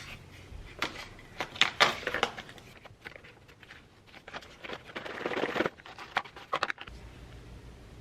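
Everyday handling sounds: a run of light clicks and knocks with rustling, swelling briefly about five seconds in, then a quiet steady hum near the end.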